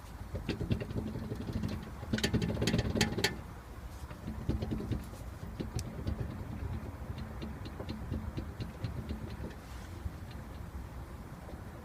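BMW 320i E90 car with a steady low mechanical rumble. About two seconds in there is a run of sharp rattling clicks lasting about a second.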